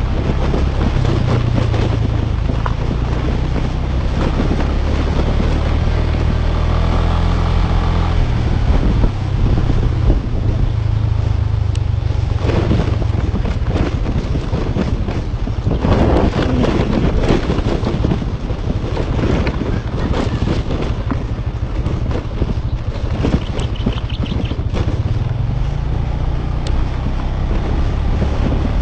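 Motorcycle engine running steadily while riding a rough dirt road, with wind buffeting the microphone. Knocks from the bumps come through now and then, thickest about halfway through.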